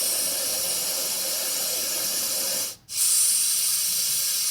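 Babelio mini white noise machine playing a steady hiss of noise through its small speaker. About three seconds in it cuts out for a split second as it switches to the next sound, which comes back as a slightly brighter, higher hiss.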